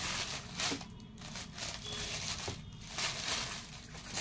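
Satin-like dress fabric rustling as a suit and its dupatta are lifted, unfolded and laid out by hand, in several short swishes.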